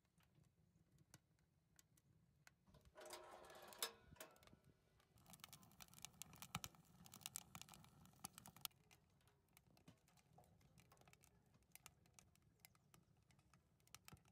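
Faint crackling and popping of wood burning in a stainless steel rocket stove: scattered sharp clicks, thickening into a denser run of crackles from about five to nine seconds in.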